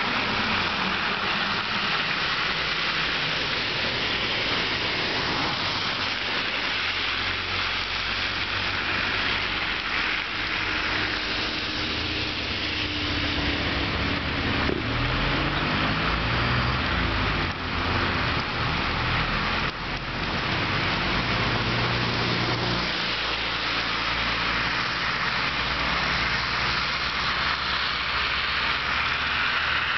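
A vehicle driving along a snow-covered road: steady tyre and road noise with a low engine hum. The engine tone rises and falls in pitch about halfway through.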